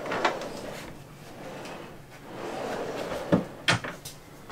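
Pull-out drawers and doors of wooden kitchen cabinets being worked. A drawer slides with a soft rumble, and there are a few sharp clicks and knocks of the doors and drawers, most of them near the end.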